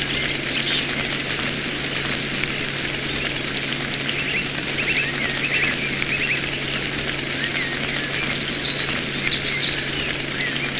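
Birds chirping in short, scattered calls over a steady hiss, with a low steady hum underneath.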